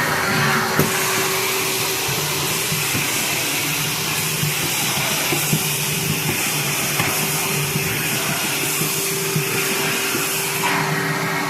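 NuTone VX475CC central vacuum power unit running with a hose attached, a steady rush of air over a steady motor tone and low hum, its exhaust vented unmuffled into the room. The airflow sound shifts about a second in and again near the end, with a small click at the first change.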